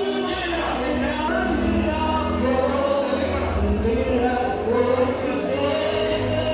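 Gospel worship music: voices singing a melody over instrumental accompaniment, with low bass notes coming in just after the start.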